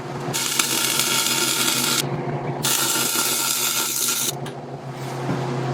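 Wire-feed (MIG) welder laying tack welds at a plate corner: two bursts of arc noise, each about a second and a half long, with a half-second gap between them, over a steady low hum.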